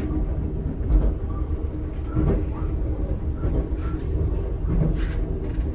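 Steady low rumble of a moving sleeper-train carriage running on the rails, with a few short knocks and rattles.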